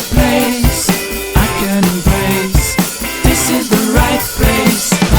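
Background pop-rock song, in an instrumental stretch between sung lines, with a steady drum-kit beat of bass and snare drum and sustained guitar or keyboard chords.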